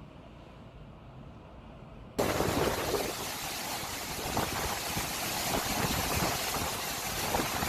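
Low, quiet rumble, then about two seconds in an abrupt switch to loud, dense storm noise: hurricane-force wind and rain, gusting unevenly.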